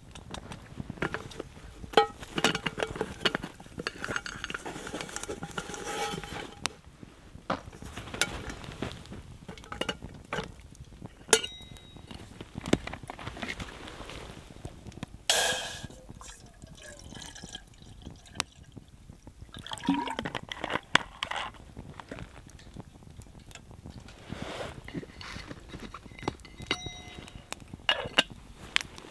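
Camp cookware being handled: a string of separate clinks and knocks from a metal pot and utensils, some ringing briefly, with water being poured into the pot.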